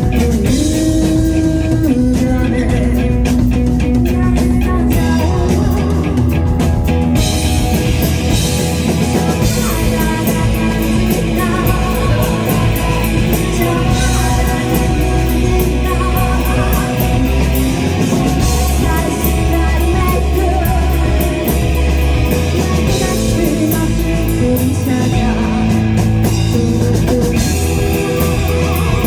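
Live rock band playing, with electric guitar and drum kit; the cymbals fill out about seven seconds in.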